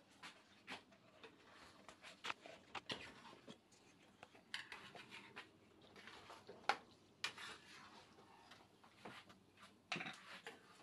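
Faint, irregular clicks, taps and scrapes of kitchen handling: utensils and cookware being worked while cooking, with a few sharper knocks scattered through.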